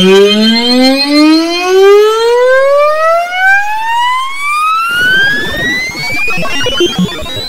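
Black MIDI played through a General MIDI soundfont synth, its tempo speeding up so far that the rapid notes merge into one siren-like tone climbing steadily in pitch. About five seconds in, a dense crackling clutter of notes joins beneath it.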